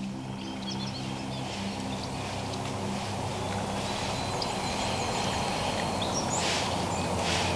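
Woodland ambience with small birds chirping. Near the end come two short rustles, a wild turkey scratching in dry leaves.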